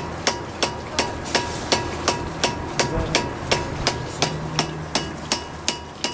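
Hydraulic ram pump working, its waste valve clacking shut in a steady rhythm of about three sharp knocks a second, each with a short metallic ring.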